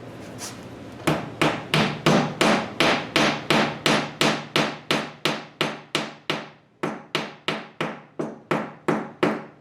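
Rapid hammer blows driving a glued softwood peg into its hole through a breadboard end, about three strikes a second with one brief pause, bringing the peg almost flush.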